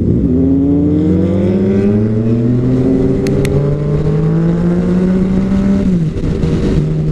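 Sport motorcycle engine pulling under throttle, its pitch rising steadily for several seconds. Near the end the pitch drops at a gear change, then holds steady.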